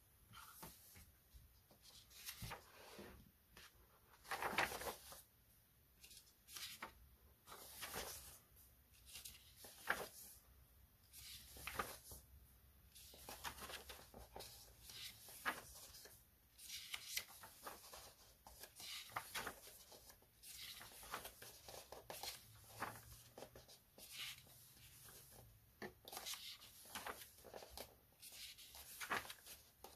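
Paper pages of a paperback colouring book being turned one after another, each turn a short rustling swish, about one every second and a half.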